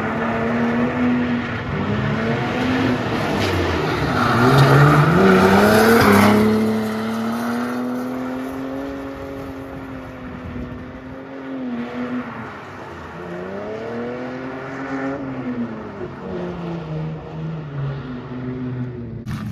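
Lexus Altezza drift car's engine revving hard as it drifts a lap, with tyres squealing; the revs climb steeply to the loudest point about five seconds in, then fall and swell again around thirteen seconds in.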